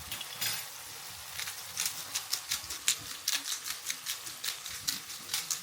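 Pepper mill grinding black peppercorns: a quick run of sharp, irregular crunching clicks, about three or four a second, over a faint sizzle from the pan.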